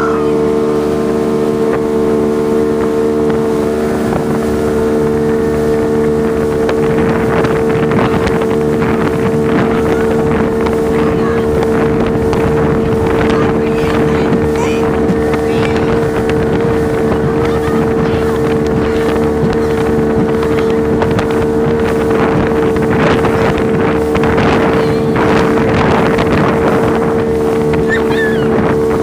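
Motorboat engine running steadily at speed, with water rushing and splashing against the hull and wind buffeting the microphone; the wind and water noise grows rougher after the first several seconds.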